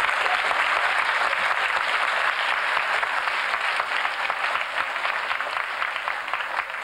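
Audience clapping together in sustained applause, a dense patter of many hands that thins out near the end.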